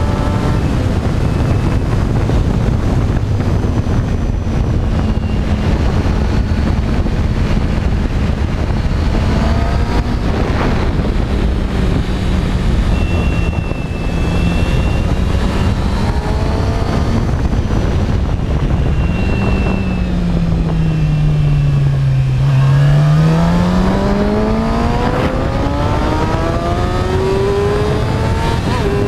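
Motorcycle engine at speed on a race track, with wind rushing over the microphone. About two-thirds of the way in the engine note falls as the bike slows, then climbs steadily as it accelerates hard.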